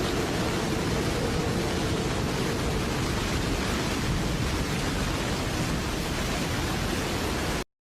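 Steady, loud rush of typhoon wind and driving rain, with no tones or voices in it; it cuts off suddenly near the end.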